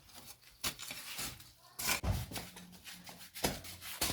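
Irregular rustling scrapes and soft knocks from hands working with clumps of grass being pulled out and handled.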